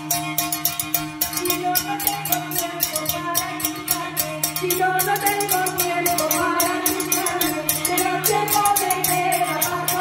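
Spanish folk music on household percussion: a frying pan and a glass bottle scraped and struck with metal utensils, with rattles, in a fast even rhythm of about five strokes a second. Underneath runs a steady low drone and a wavering melody.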